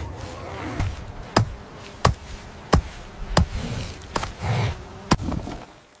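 A series of sharp, heavy knocks at a steady pace, about one every two-thirds of a second, with softer low thuds between them.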